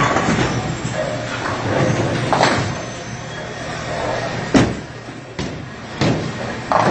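Bowling alley sounds: several sharp knocks and clatters of balls and lane machinery over a steady low hum, with a loud thud about halfway through as a bowling ball is released onto the lane.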